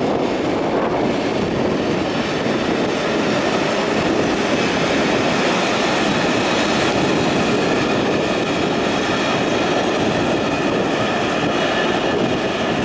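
Train running through a station on the rails: a steady, loud rumble and rush of wheels with a faint high whine.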